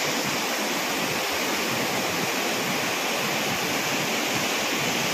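Mountain river rushing through whitewater rapids over rocks, a steady, unbroken rush of water.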